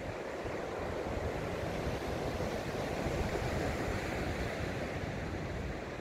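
Small waves breaking and washing up onto a sandy beach: a steady surf hiss with a low rumble underneath.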